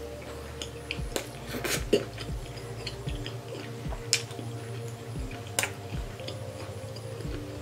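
Eating sounds: scattered clinks of cutlery against a plate, three of them sharper, about two, four and five and a half seconds in, over a faint steady hum.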